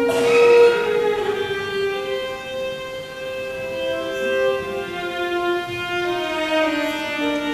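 Solo violin playing a slow melody in long, sustained bowed notes that change pitch every second or two.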